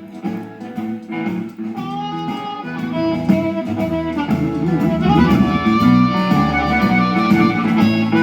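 Guitar music playing through a JBL Radial iPod speaker whose bass speaker has a new home-made foam diaphragm, with full bass notes; the repaired woofer works well. The music starts right at the beginning.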